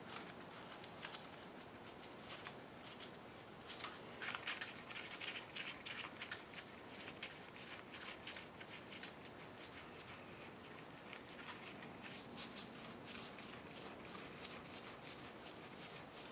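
Faint, scattered small metallic clicks and rattles of hand tools and bolts as bolts are worked into an engine block by hand, with a quicker run of clicks about four seconds in.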